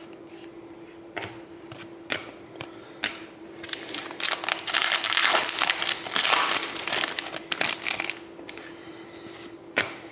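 Plastic trading-card pack wrapper being crinkled and torn open, a dense crackling rush that builds about four seconds in and lasts about four seconds, with scattered clicks and taps of cards being handled before and after. A faint steady hum lies underneath.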